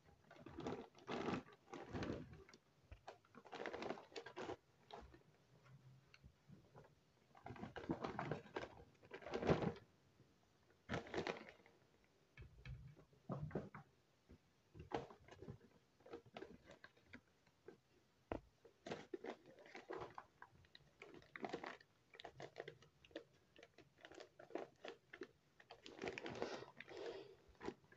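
Clear zip-lock plastic bags crinkling and rustling, with flour-coated potato fries sliding in, as the bags are filled by hand and handled. The sound comes in irregular short bursts.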